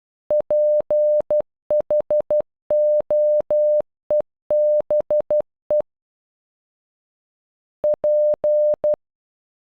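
Synthesized Morse code beep tone keying out "PHOEBE" (.--. .... --- . -... .) as short and long beeps of one steady pitch. After a pause of about two seconds, the letter P (.--.) sounds again on its own as the letter-by-letter spelling begins.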